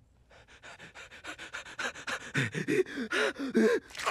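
A man's voice panting rapidly in excited hyperventilation, about eight quick breaths a second, growing louder, with short squeaky voiced whimpers mixed in during the second half.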